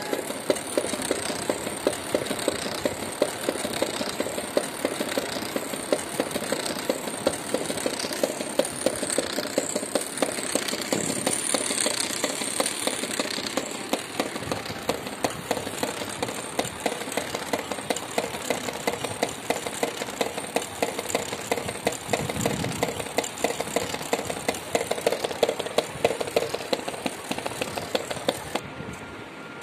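Homemade motor-driven drum machine built from metal construction-kit strips running, its long rubber-band-tipped sticks tapping a plastic tub in a rapid, even rhythm over the whir and rattle of the motor and gears, with a high, wavering motor whine.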